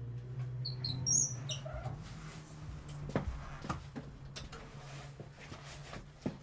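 A low steady hum with a few short high squeaks about a second in, then scattered knocks and clicks, like someone moving about at a room's entryway.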